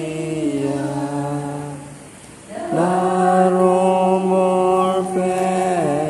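Slow chant-like hymn sung in long held notes, softening briefly about two seconds in, then a louder held note that slides down in pitch near the end.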